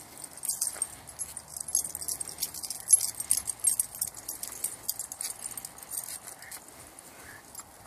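Dog collar tags and leash clips jingling as four Cairn Terriers walk on leashes: a busy run of small metallic clinks that thins out near the end.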